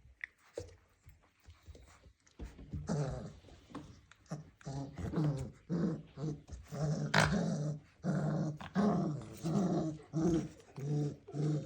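Dalmatian puppies growling in play: quiet at first, then from about two and a half seconds in a string of short, rough growls in quick succession, with a sharp click about seven seconds in.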